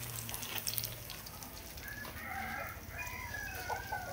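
A rooster crowing faintly in the background: one long, wavering call starting about two seconds in.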